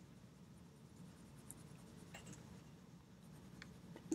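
Faint scratching of a mechanical pencil's lead on paper as a drawing is shaded along a plastic straight edge, with a few light ticks and a sharper click near the end, over a low room hum.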